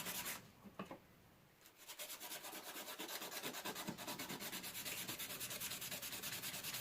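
Sandpaper rubbing on a knife blade in rapid back-and-forth strokes, a scratchy hiss. It pauses about half a second in and resumes just before two seconds in.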